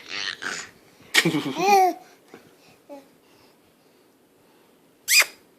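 A baby babbling in short vocal noises: two brief sounds at the start, a louder, longer one with rising and falling pitch about a second in, and a short high squeal near the end.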